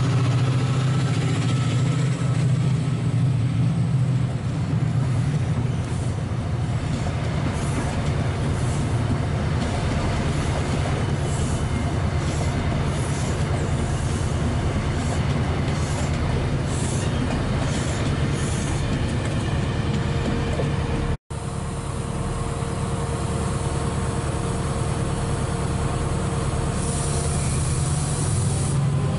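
A diesel locomotive-hauled passenger train moving slowly past along a platform: a steady low diesel engine drone, with wheels clicking over rail joints as the coaches go by. The sound drops out for an instant about two-thirds of the way through, then a diesel train's engine drone carries on.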